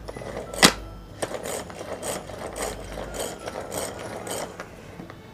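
Pull-string manual vegetable chopper being worked: its cord is pulled out again and again, and the gears inside whir and ratchet with each pull, about two pulls a second. A single sharp click comes about half a second in.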